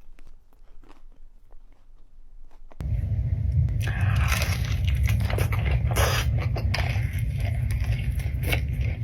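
Close-miked eating sounds of crispy fried chicken tenders: faint crunching and clicks at first. About three seconds in, a loud steady low rumble starts suddenly, with scraping and clicking over it.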